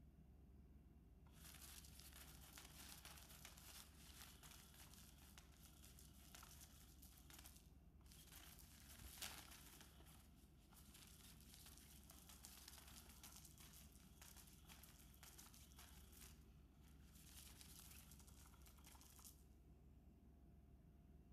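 Faint crinkly rustling of a Catch Me If You Can motorized cat toy's fabric cover as its wand sweeps about beneath it. It starts about a second in, pauses briefly twice, and stops a couple of seconds before the end.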